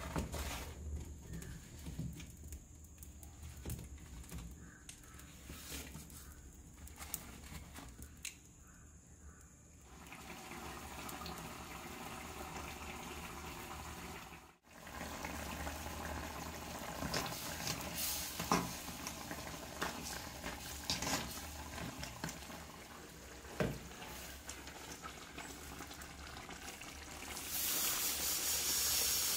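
Chicken curry bubbling and simmering in a clay pot over a wood fire, with scattered sharp pops and crackles. Near the end comes a louder, steady hiss of steam.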